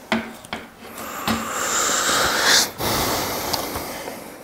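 A man breathing heavily close to a clip-on microphone: a long breath in that stops sharply, then a slow breath out that fades. A few small clicks come before it.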